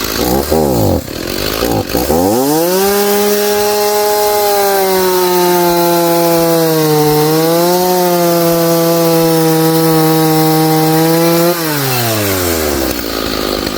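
Gas chainsaw blipped twice, then run up to full throttle and held there while cutting through a log, the engine speed sagging briefly under load partway through the cut before the throttle is released and it drops back to idle. It is very loud.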